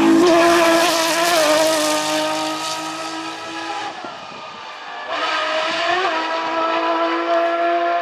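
Porsche 997 GT3 rally cars' flat-six engines at high revs. One passes close and loudly, then fades as it pulls away. About five seconds in, the sound cuts to another car held steady at high revs.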